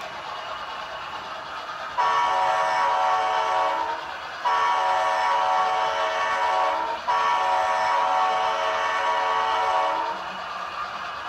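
Sound-decoder air horn of an HO scale Southern Pacific ALCO PA model diesel locomotive, sounded as three long blasts, the second and third almost back to back, over a faint steady background.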